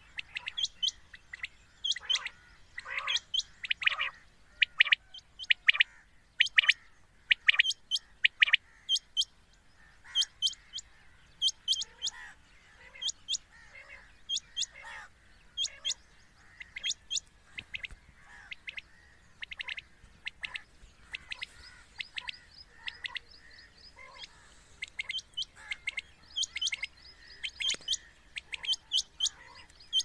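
Common quail calling: quick runs of short, sharp, high calls repeating throughout. A recording of the kind played as a lure to draw quail in for hunting.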